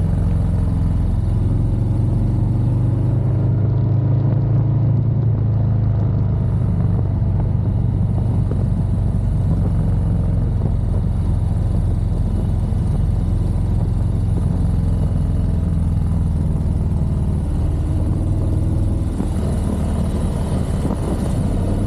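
Motorcycle engine running steadily while riding at road speed on an open highway, a low drone whose pitch rises and falls slightly with the throttle.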